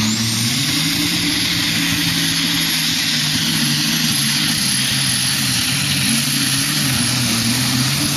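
Modified pulling tractor's engine running steadily with a thin high whine that rises at the start and then holds, after its driveline has failed and left the engine disconnected from the wheels.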